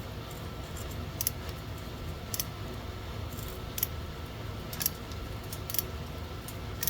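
Hand tap cutting 8 x 1.25 threads through a thin sheet-steel bolt hole: sharp metallic clicks about once a second as the tap is turned and bites. A low steady hum runs underneath.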